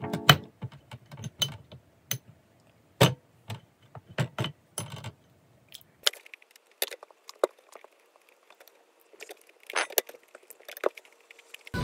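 Irregular sharp clicks, taps and light clatters of small hard objects being handled, closely spaced at first and sparser after about halfway.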